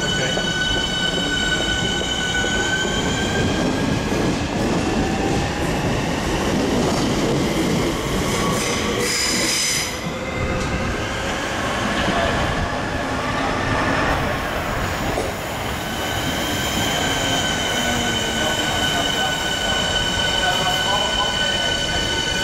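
Southeastern electric multiple-unit trains moving through the station: a high electric traction whine made of several steady tones over wheel-on-rail running noise. The whine rises in pitch as a train gathers speed, weakens midway, and comes back strongly in the last few seconds.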